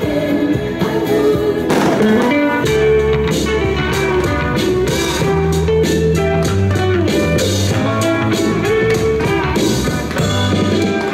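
Recorded music with guitar and a steady drum beat, played loud as the soundtrack of a pyromusical fireworks display.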